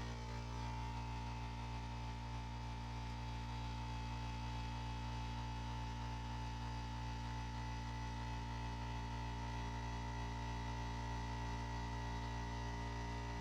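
Steady electrical hum with several fixed tones and a faint fast pulsing low down.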